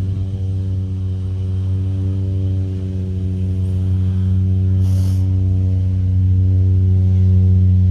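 The engine and propeller of a skydiving jump plane running on the ground, a steady pitched drone that grows gradually louder. A brief hiss comes about five seconds in.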